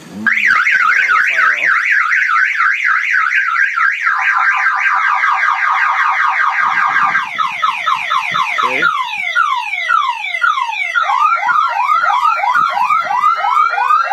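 Titan cellular boat alarm siren sounding, set off by opening the cabin's sliding door. It cuts in about a quarter second in and cycles through several tones: a fast warble, then slower rising and falling sweeps, then crossing sweeps near the end.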